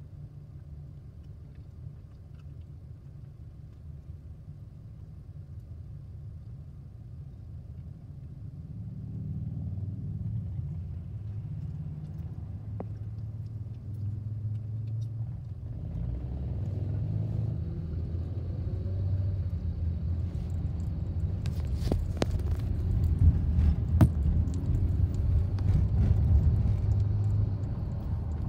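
Low engine and road rumble heard inside a car's cabin: steady while stopped, then growing louder about halfway through as the car pulls away and drives on, with a few sharp clicks near the end.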